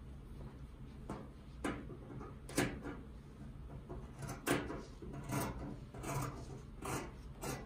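Fabric scissors cutting through a paper pattern pinned to woven cotton fabric: a run of about eight separate snips, roughly one a second, unevenly spaced.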